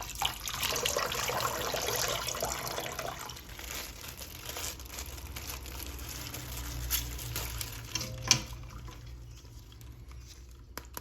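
Water running and splashing while a plastic toy figure is handled, with crinkling handling noise. It is loudest for the first three seconds, then dies down, and there is a sharp click a little after eight seconds.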